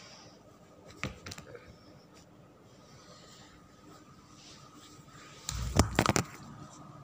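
Handling noise on a phone's microphone: a few light clicks about a second in, then a cluster of loud thumps and rubbing as the phone is swung around near the end.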